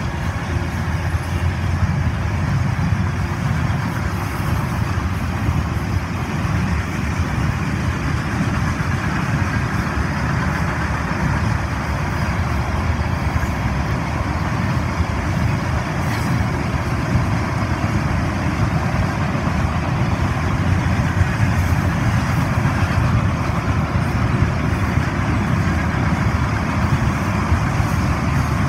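Freight cars of a mixed freight train rolling past, a steady rumble of steel wheels on rails.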